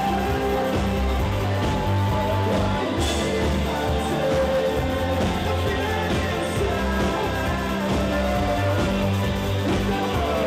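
A rock band playing live, with drums and electric guitar.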